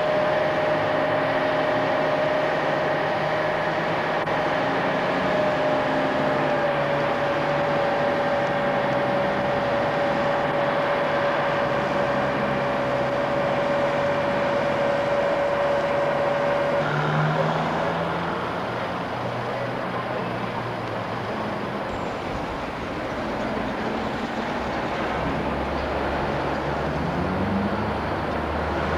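Engines running from a mobile crane and street traffic. A steady whine sits over the engine noise and stops about 17 seconds in. Near the end a low engine note rises as an engine revs up.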